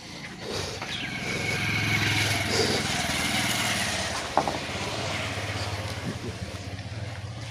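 A small engine running, growing louder over the first two seconds and then easing off, with a single sharp knock about four seconds in.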